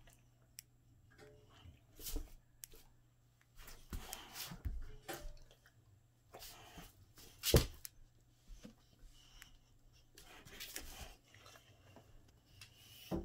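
Boxer dogs scuffling after a laser dot on a rug and wooden floor: scattered soft paw thumps and scrapes, with one sharp thump about seven and a half seconds in.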